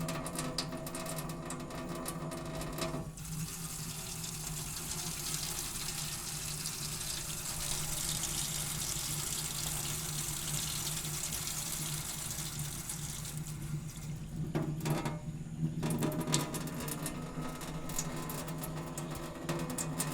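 Water from a tap: separate drips splashing for about the first three seconds, then a steady running stream into a sink, then drips again from about fourteen seconds in.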